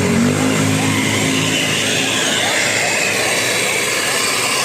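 Bus passing with loud, steady engine and road noise; a low pitched tone stops a fraction of a second in.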